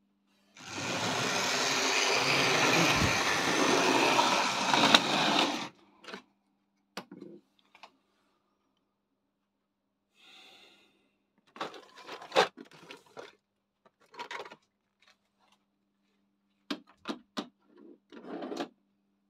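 Tri-ang model train running on the track: a steady rattling noise for about five seconds, then scattered clicks and knocks, over a faint steady hum.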